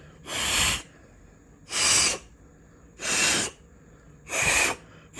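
Four short blasts of air, about one every second and a half, blowing water out of the revolver's cylinder chambers to dry them after ultrasonic cleaning.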